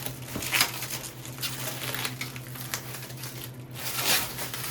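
Protective plastic film being peeled off a metal cage poop tray, crinkling and rustling irregularly with two louder bursts, about half a second in and near the end, over a steady low hum.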